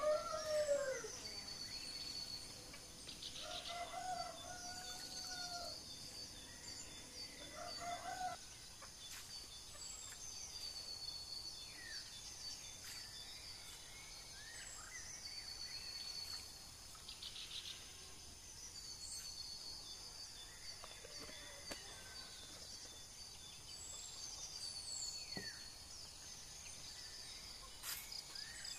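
A rooster crowing a few times in the first several seconds, over a steady high trill of insects. A short high chirp repeats every few seconds through the rest.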